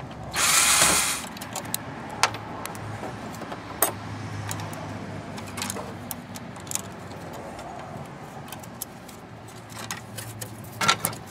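Hand dismantling of a projection TV's lens housing: a loud harsh noise lasting about a second near the start, then scattered clicks and clanks of plastic and metal parts being pulled apart and handled.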